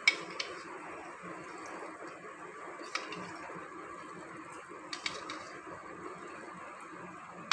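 Cornflour slurry poured from a steel tumbler into simmering sauce in a pan, over a steady low hiss. A few light clicks come from the steel tumbler, one right at the start, another soon after, and more about three and five seconds in.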